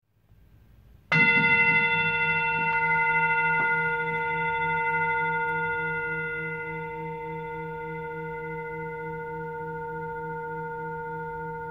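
A singing bowl struck once about a second in, then ringing on with a slow wavering pulse as it fades gradually. Two faint ticks come a couple of seconds after the strike.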